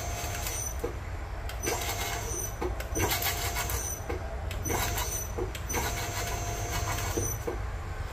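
Nargesa CC90 tube bender's drive running in about five short runs, each with a steady whine, as it bends square aluminium tubing a step at a time. There are sharp clicks between the runs and a steady low hum under everything.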